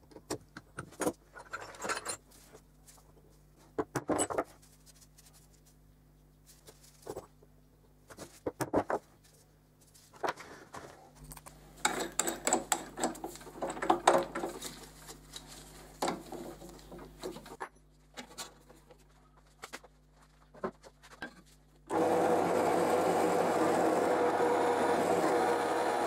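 Light clicks, knocks and rattles of metal parts being handled, including a bit being fitted into a drill press chuck. Near the end, a bench drill press starts and runs steadily, much louder, drilling through a metal strip.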